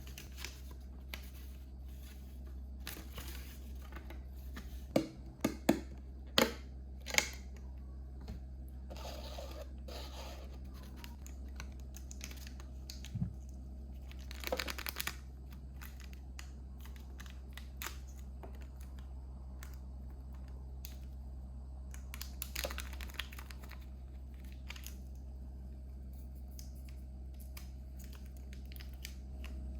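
Toy packaging being opened by hand: cardboard and plastic rustling, crinkling and tearing, with scattered clicks and a few sharper snaps about five to seven seconds in, over a steady low hum.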